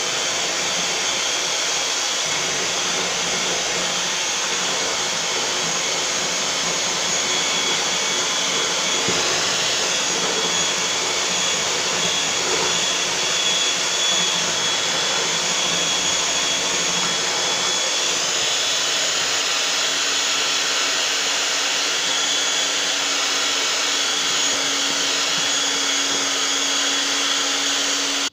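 Handheld electric mixer with twin beaters whipping meringue (egg whites with icing sugar) in a plastic bowl, running steadily with a high motor whine, beating toward stiff peaks. It cuts off suddenly at the end.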